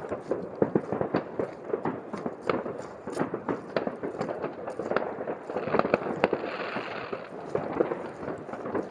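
Distant fireworks and firecrackers going off in a continuous, irregular barrage of many overlapping bangs and cracks.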